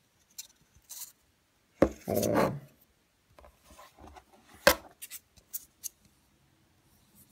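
Clicks and light rubbing from a hand turning the exposed rotary disc of a disassembled digital angle finder on a tabletop: a sharp click about two seconds in, a louder one past four and a half seconds, and fainter ticks between.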